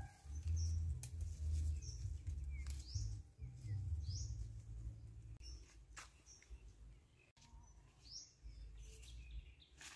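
Scattered bird chirps, short high calls every second or two, over a low rumble on the microphone that fades after the first half. A few sharp clicks of leaves and twigs being handled while leaves are picked from a shrub.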